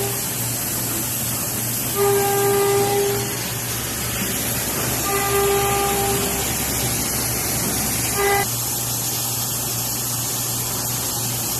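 CNC vertical machining center running with a steady hiss and low hum, while a pitched warning buzzer sounds three times, about a second and a half each, the last one short.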